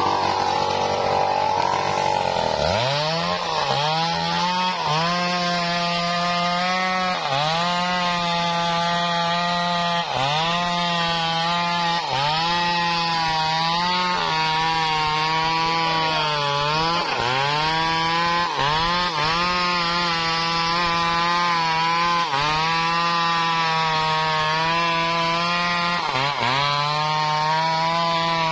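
Stihl MS 381 two-stroke chainsaw cutting through a large teak log. It runs at high revs for the first two seconds or so, then the pitch drops as the chain bites into the wood. The engine then bogs under load and recovers about every two seconds as the operator leans into the cut.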